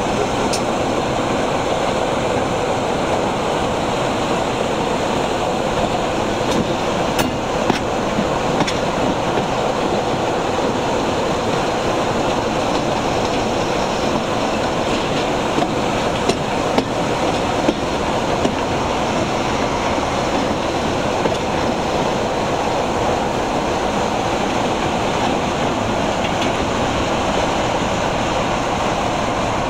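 Diesel-hauled train running at speed, heard from an open carriage window right behind the locomotive: a steady mix of engine, wheel and rushing-air noise, with a few sharp clicks in the middle.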